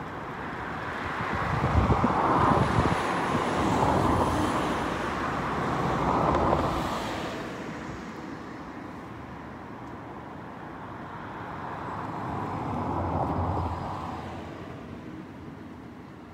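Road traffic: cars passing, their tyre and engine noise swelling and fading. There is a long loud stretch over the first half and a smaller pass a little after the middle.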